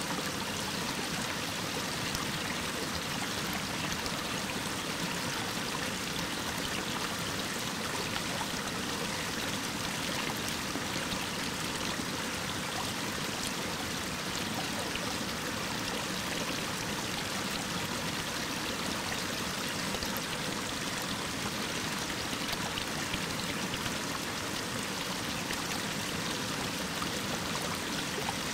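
Waterfall pouring down a rock face: a steady, even rush of falling water that does not change.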